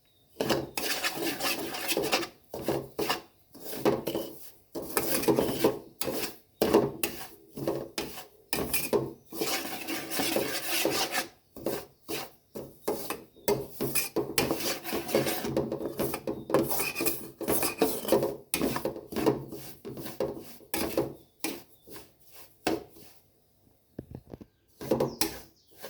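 A spatula scraping and stirring around a kadai as semolina and ground coconut are dry-roasted in ghee, in repeated irregular strokes with a couple of short pauses.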